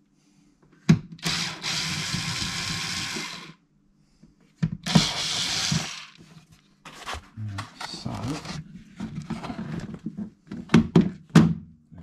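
Electric screwdriver whirring in two bursts, the first about two seconds long and the second about one, as it backs screws out of the base of a Pioneer XDJ-RX controller. Clicks and knocks from handling the unit follow, the loudest near the end.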